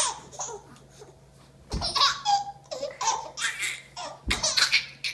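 Baby laughing in repeated short bursts, starting after a quiet second or so. Two dull thumps, a couple of seconds apart, each come just before a burst of laughter.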